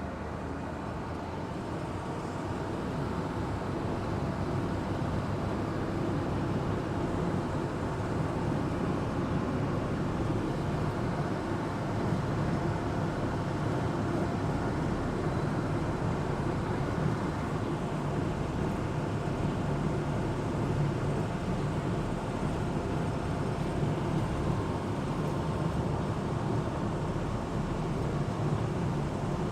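An amphibious Duck (converted WWII DUKW) running steadily while cruising on the water, its engine drone swelling a little over the first few seconds and then holding steady.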